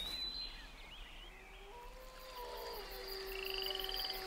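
A chorus of frogs and insects calling: long steady calls come in about halfway, and a fast pulsing insect trill starts near the end.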